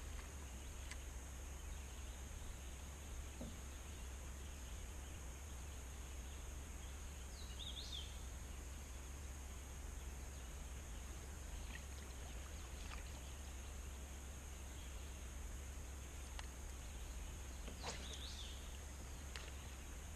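Faint outdoor ambience: a steady low hum under a steady high-pitched drone, with a short bird chirp about eight seconds in and another near the end.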